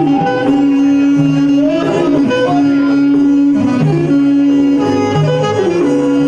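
Live Epirote folk dance music from a clarinet-led band with a defi frame drum: long held melody notes with slides over a steady lower part.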